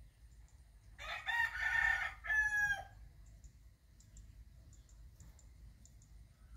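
A rooster crowing once, starting about a second in and lasting about two seconds.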